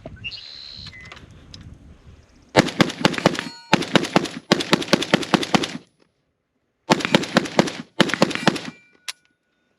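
PSA AK-105 rifle in 5.45×39 firing five quick strings of rapid shots, each about a second long, with short pauses between strings.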